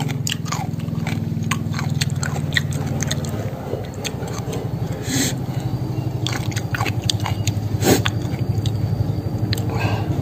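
A person chewing and biting raw water spinach (morning glory) salad close to the microphone: many short crunching and wet mouth clicks, with a fresh bite into a stalk near the end.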